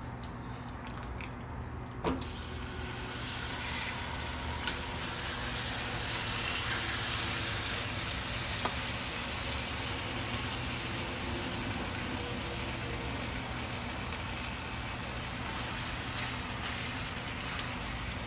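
Marinated chicken sizzling as it is spooned into hot oil in a cast-iron skillet; the sizzle starts about two seconds in and stays steady, over a low hum. A few sharp clicks sound as the chicken goes in.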